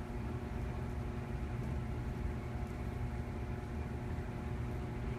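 A steady low rumble with a constant machine hum.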